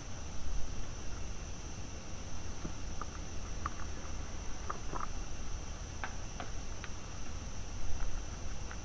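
Steady high-pitched chorus of night insects, with scattered short chirps from about three seconds in, over a low rumble.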